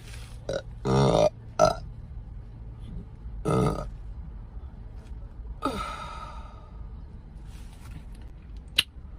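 A woman burping: a loud burp about a second in with short ones either side, another loud one at about three and a half seconds, and one that falls in pitch near six seconds. A short sharp click comes near the end.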